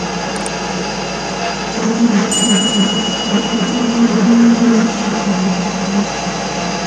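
MetalMaster MML 2870 MV lathe-mill running under power feed, its tool taking a turning pass along a steel round bar: a steady motor-and-gear rumble, with the cut wavering louder through the middle. A brief click sounds just under half a second in, and a high steady tone sounds from about two seconds in to about four.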